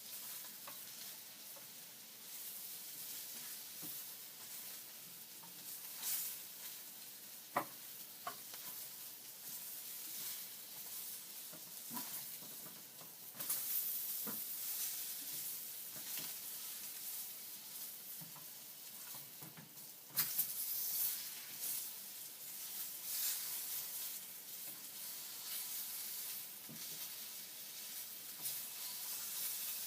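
Bacon sizzling in a pan: a steady high hiss of frying fat with frequent crackles and pops, growing louder in spells about 13 and 20 seconds in.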